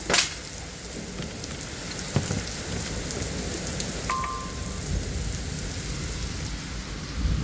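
Heavy rain falling steadily during a thunderstorm, with a low rumble of thunder building near the end. A short electronic beep sounds about four seconds in.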